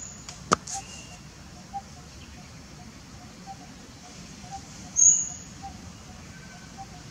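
Outdoor ambience with bird calls: a faint soft call repeating about twice a second, a sharp click about half a second in, and one short, very high chirp about five seconds in, the loudest sound.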